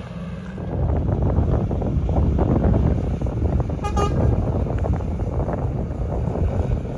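Heavy truck engine rumbling loud and close, with one short horn toot about four seconds in.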